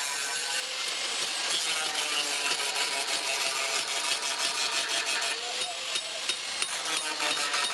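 Steady rasping of a tool working the steel of a clutch plate being shaped into a knife, with faint wavering tones under the noise.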